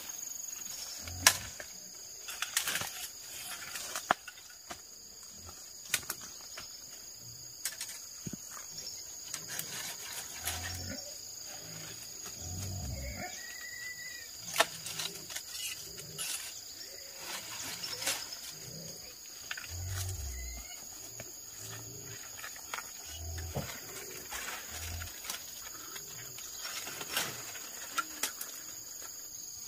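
Leaves and vines rustling, with sharp clicks and snaps, as bottle gourds are picked from a bamboo trellis, along with scattered dull thumps of handling. A steady high insect drone goes on throughout.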